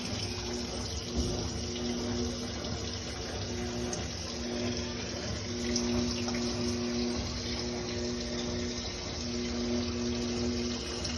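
Mabe washing machine filling, water running steadily into the tub, with a low electrical hum that comes and goes every few seconds.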